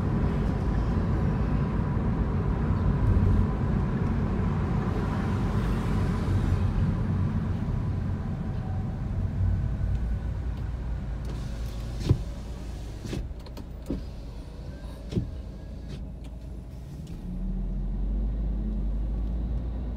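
Engine and road noise heard inside a moving car, dying down as the car slows to a stop; a few sharp clicks about halfway through, then a steady low rumble comes up near the end.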